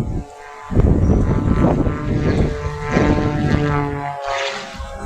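Propeller airplane engine running at an air show, a loud drone with steady pitched tones over rough low noise. The sound drops away sharply for about half a second soon after the start, and dips again briefly near the end.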